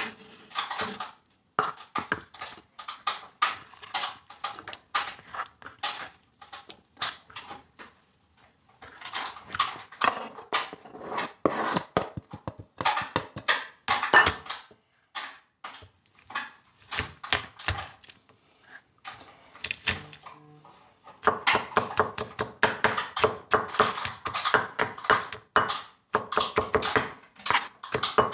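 Knife chopping on a plastic cutting board: irregular runs of quick knocks with short pauses as tomatoes are diced, then fast, steady chopping for the last several seconds as garlic is minced.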